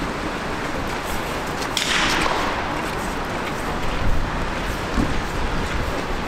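A single .22LR rifle shot about two seconds in: a sharp crack with a short hissing tail that drops in pitch, over steady background noise.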